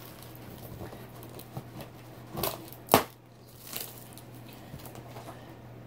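Cardboard shipping box being pried open by hand: faint scraping and rustling of the flaps, with a sharp snap about three seconds in.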